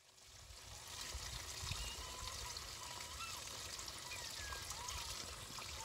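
Shallow water trickling and running steadily through a muddy channel, with several short, high chirps scattered over it.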